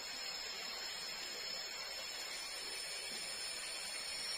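Steady tropical forest ambience: an even hiss with a thin, unbroken high whine, as from insects droning in the surrounding jungle.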